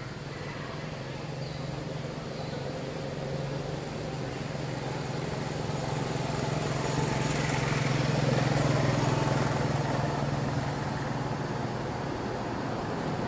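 A motor engine's steady hum, growing louder toward the middle and then easing off, like a vehicle passing by.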